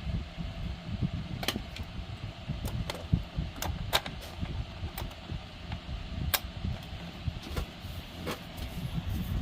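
Scattered sharp metallic clicks and taps from hands and tools working on a safe's combination lock mechanism, about a dozen at irregular intervals over a steady low rumble.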